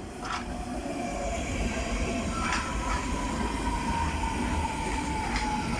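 Train rumbling along the track with a high, thin whine slowly falling in pitch. Sharp clacks of the wheels come three times.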